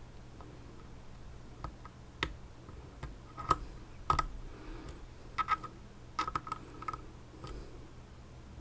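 Pick and tension wrench working in an Elzett Seclox 11-pin dimple lock cylinder: scattered small metallic clicks of pins being set, a few single ones at first, then quick little runs of clicks in the second half.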